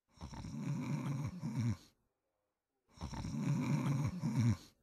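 A man snoring in his sleep: two long snores, each lasting about a second and a half, with a pause of about a second between them.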